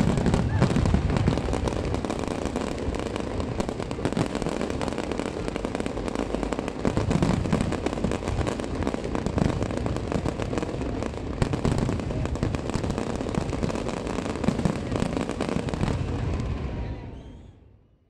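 Fireworks going off in rapid succession: many overlapping bangs and crackles, fading out over the last second or so.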